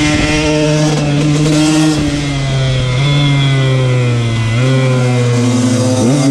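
KTM 125 two-stroke motard engine running at high, steady revs under throttle. Its pitch drops slightly twice and climbs again near the end.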